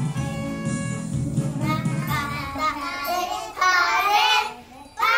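Instrumental backing music for a Christmas song, then a group of young children singing along from about halfway. The singing breaks off briefly near the end and starts again.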